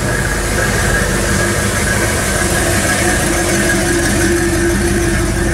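1964 Ford Galaxie 500 convertible's engine running steadily at low speed as the car rolls slowly past.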